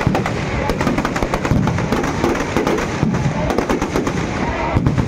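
Firecrackers packed inside a burning Ravana effigy going off in a rapid, irregular string of loud bangs and crackles.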